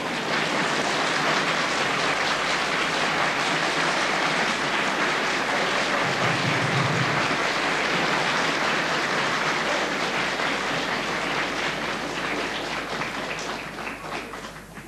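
Studio audience applauding steadily for an arriving guest of honour, swelling in at the start and dying away near the end.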